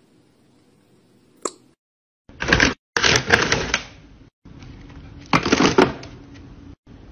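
A single sharp click, then three loud bursts of dry kibble rattling and rustling against a hand and the open paper food bag as a handful is scooped out and shaken in a closed fist.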